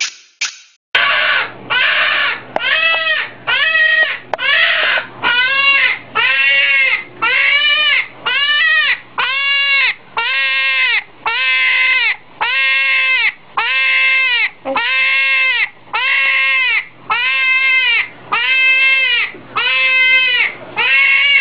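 A hedgehog screaming again and again: a loud wail that rises and falls in pitch, repeated about once a second. This is the distress scream hedgehogs give when frightened or handled.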